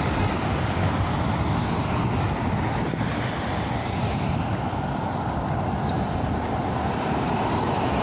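Strong wind buffeting the microphone over the steady sound of ocean surf.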